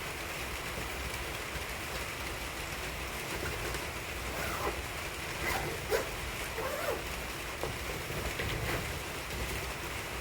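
Steady rain falling, an even hiss, with a few faint short sweeping sounds in the middle and a single light tap about six seconds in.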